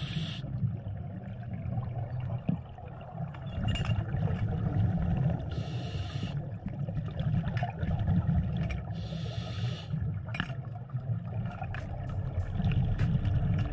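A scuba diver's breathing heard underwater: three bursts of bubbling hiss from the regulator's exhaled bubbles, a few seconds apart, over a steady low rumble of water against the camera housing, with scattered small clicks.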